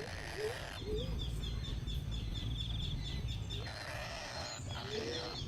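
Baby birds chirping in a quick repeated series, about four high chirps a second, the begging calls of hungry nestlings. Two short, low rising calls come in the first second.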